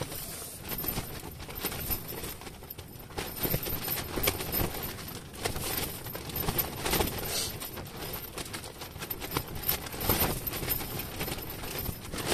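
Irregular knocks, rustles and clatter from a pop-up ice-fishing tent's fabric flapping and shaking in gusty wind, with louder flurries about three, seven and ten seconds in.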